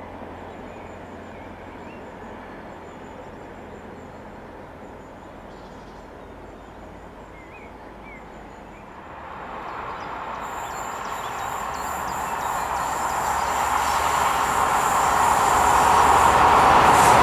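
Class 43 HST diesel test train approaching. It is faint at first, then grows steadily louder from about halfway through as the power car and the wheels on the rails draw near.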